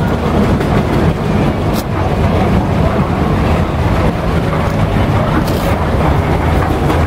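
Steam roller running as it moves slowly along the street, a loud, steady low rumble with no clear beat.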